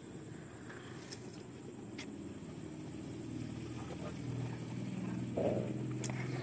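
Faint low steady hum that grows slightly louder after a few seconds, with a few soft clicks.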